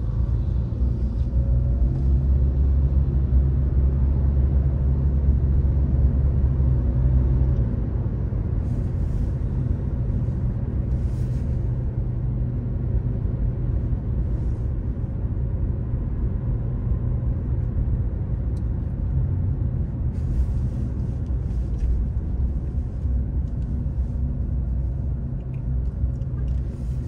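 Car cabin while driving: steady low engine and road rumble, a little louder for the first several seconds and then settling to an even drone.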